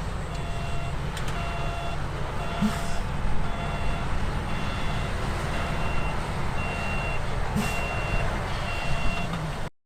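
Reversing alarm on heavy earthmoving machinery beeping in a steady repeated pattern, about once a second, over the loud low rumble of a diesel engine. The sound cuts off abruptly just before the end.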